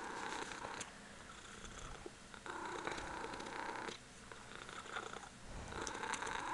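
Ragdoll cat purring softly, swelling and fading in long phases every few seconds as she breathes in and out.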